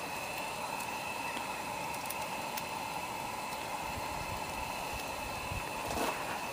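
Steady background hiss with a faint, high, steady whine running through it, and a few faint ticks; no distinct event stands out.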